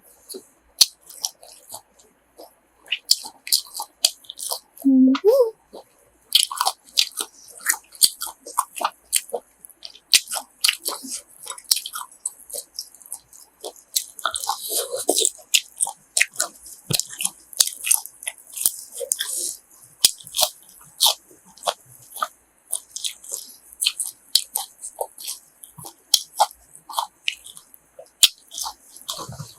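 Close-up chewing and biting of crisp grilled pork offal, with many irregular crunches.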